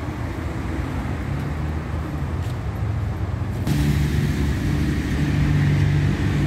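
Road traffic: passing cars with a steady low engine hum, which turns suddenly louder and fuller a little over halfway through.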